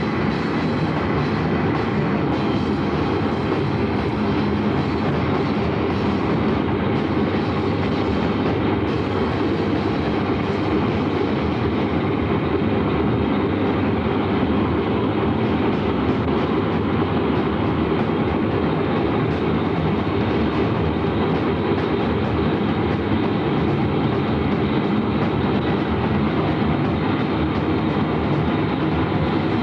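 Steady rumbling noise of a moving vehicle, unbroken and even in level.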